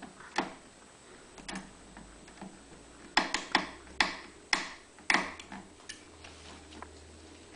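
Sharp clicks of a ratcheting hose clamp on a fuel hose being squeezed shut with needle-nose pliers. There are a few scattered clicks early on, then a quick run of about six loud ones halfway through.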